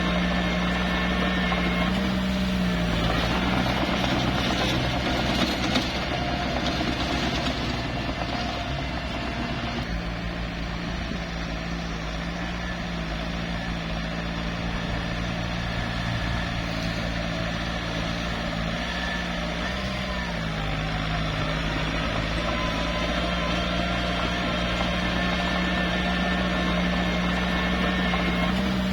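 Small bulldozer's diesel engine running steadily while working, its pitch sagging briefly twice, about two seconds in and again near the twenty-second mark, as it takes on load.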